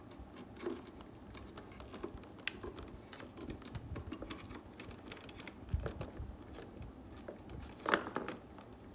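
Scattered light clicks and taps of hard plastic as a toy water-bead blaster pistol is handled and a small battery is pushed into it, with a sharper click about eight seconds in.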